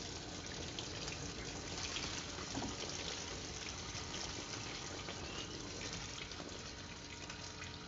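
Engine coolant trickling and dripping out of the opened water pump housing of a Fiat Evo engine, a steady flow.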